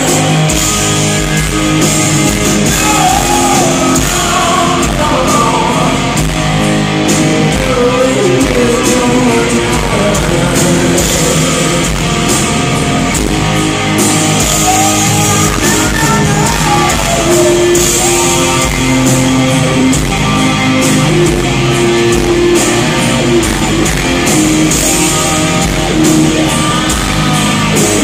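A rock band playing live, loud and continuous: electric guitar and drums under a sung lead vocal, recorded from within the audience in a large hall.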